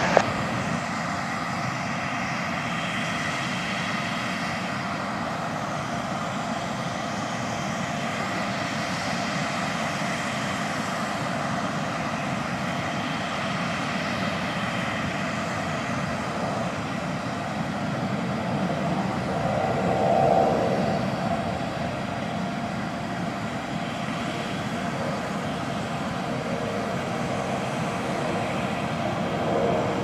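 Antonov An-124's four Progress D-18T turbofan engines heard from the ground as the freighter climbs out after takeoff: a steady jet rumble, swelling briefly about two-thirds of the way through.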